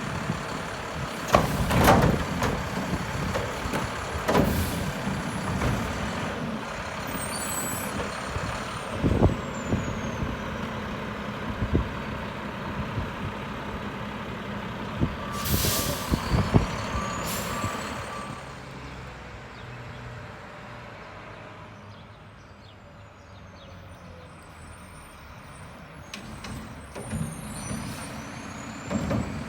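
Mack garbage truck running with a Heil body and Curotto Can during manual collection: the engine runs steadily and there are several sharp bangs and knocks in the first half. About halfway through come an air-brake hiss and a short run of reversing beeps, then the engine quietens for a while.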